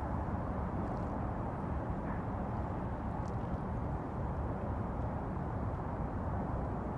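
Steady low rumble and hiss of open harbour ambience, with no single clear source standing out, and a couple of faint clicks about one and three seconds in.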